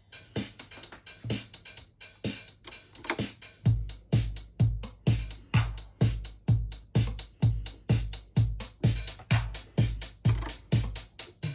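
DinSync RE-909, an analogue recreation of the Roland TR-909 drum machine, playing a pattern with crisp 909 hi-hats. The kick drum is out for the first few seconds, then comes back in a steady four-on-the-floor at about two beats a second. It is heard through studio monitors and picked up by a phone.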